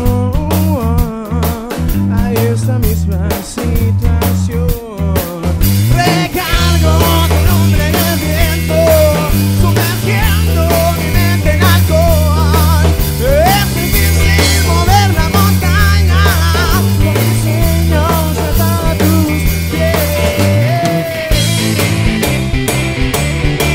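Rock band playing live: electric guitar, bass and drum kit, with a sung line over a sparser accompaniment at the start. About six seconds in the full band comes in, with a steady bass line, cymbals and a wavering lead melody.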